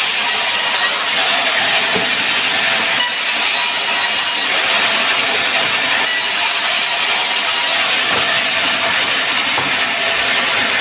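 Woodworking machine running on sengon wood: a loud, steady hissing noise, its high end brightening for a second or so several times.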